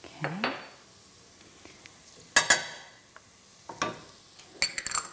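Small ceramic spice dishes knocking and clinking against a stainless steel saucepan and the counter as ground spices are tipped into the pan: a short scrape near the start, two sharp knocks about halfway, and a quick cluster of ringing clinks near the end.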